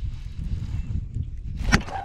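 Low wind rumble on the microphone, then a sharp click about three-quarters of the way through as a baitcasting rod and reel are swung into a cast.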